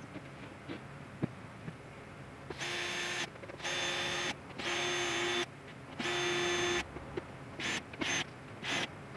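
Stanley cordless drill run in four short bursts of under a second each, its bit into the edge of a wooden board, then triggered in several quick blips near the end. Light clicks of handling come before the first burst.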